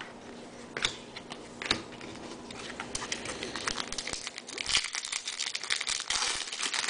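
Foil wrapper of a trading-card pack crinkling as it is handled and torn open, a dense crackle that builds from about halfway through. Two light clicks come earlier.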